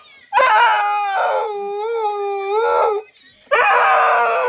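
Siberian husky howling: one long howl of about two and a half seconds with a slowly wavering pitch, then after a short breath a second howl that runs on to the end.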